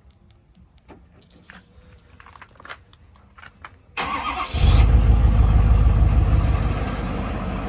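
Faint scattered clicks and light taps. About four seconds in, this changes abruptly to a loud vehicle running, a heavy low rumble with road noise.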